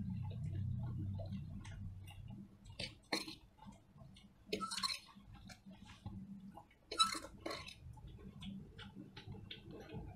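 Eating at a table: a spoon scraping and clinking on steel plates, with louder scrapes about three, five and seven seconds in, amid many small clicks.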